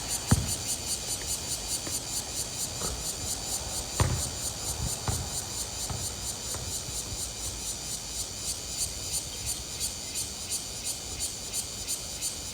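Insects calling in a steady chorus that pulses about three times a second. Over it come a few dull thuds of a basketball bouncing on the court, the loudest about four seconds in.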